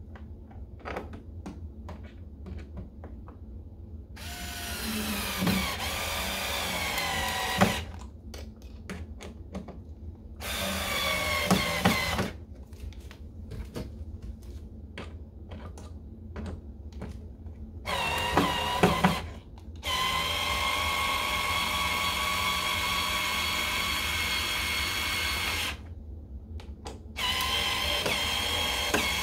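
A BLACK+DECKER 4V MAX cordless screwdriver drives screws into a door frame in five separate runs. The first run drops in pitch as the screw tightens, and the longest run lasts about six seconds. Small clicks and knocks of handling fall between the runs.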